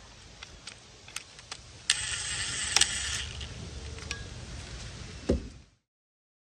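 Hand work on a car's gear selector cable and bracket: scattered light metal clicks and clinks, a stretch of rubbing noise about two seconds in, and a louder thump near the end.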